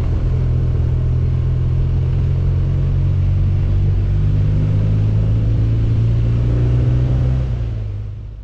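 2011 BMW R1200GS Adventure's boxer-twin engine running steadily on the road, a low rumble whose pitch climbs a little around the middle. It fades out near the end.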